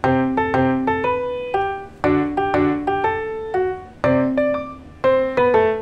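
Background piano music: a light tune of struck notes that ring and fade, with a fresh phrase beginning about once a second.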